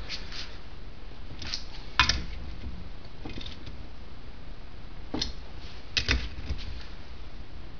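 Scattered metallic clicks and clinks of a brake servo, its mounting bracket and a socket ratchet being handled as the bracket is fitted and tightened. The loudest single knock comes about two seconds in, and a short cluster of clicks comes about six seconds in.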